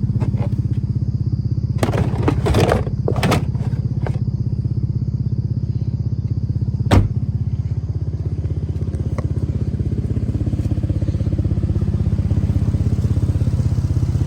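Infiniti G37's V6 engine idling steadily, with a few short knocks and clatters around two to four seconds in and one sharp thump about seven seconds in.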